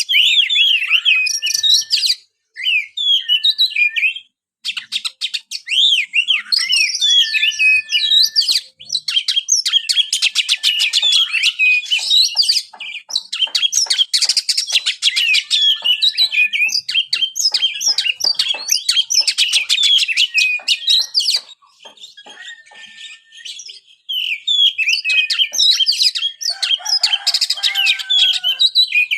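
Oriental magpie-robin (kacer) singing a fast, varied song of high chirps, trills and whistles, with a short flat whistled note that recurs again and again. The song breaks off briefly a few times and drops away for a longer pause about three quarters of the way through, then resumes with some lower gliding whistles mixed in.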